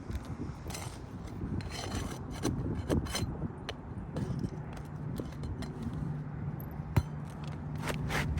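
Flat bar scraping and rubbing under asphalt shingles as they are pried up and their seal broken, with scattered clicks and a sharp tap about seven seconds in.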